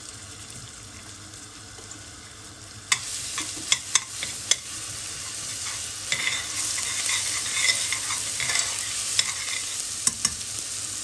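Chopped garlic sizzling in a little hot oil in a stainless steel pot. The sizzle rises sharply about three seconds in with a few sharp clicks, then keeps up a steady hiss that grows louder as the oil heats.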